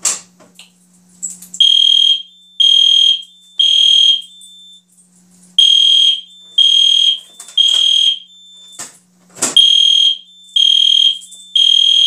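Fire alarm horns sounding the evacuation signal, very loud: a high electronic tone in half-second beeps, three at a time with a pause between each group (the temporal-three pattern). Before the horns start there is a faint steady hum from the panel, and there is a sharp knock about nine seconds in.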